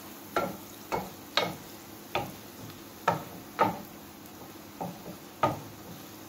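Wooden spoon stirring in a pan, knocking sharply against it about eight times at uneven intervals, over the steady sizzle of garlic frying in melted butter.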